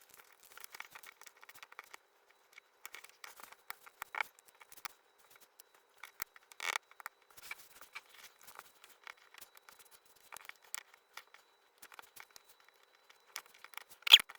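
Hands handling and fitting small cardboard jigsaw puzzle pieces: scattered light clicks and soft rustling, with a sharper click just before the end.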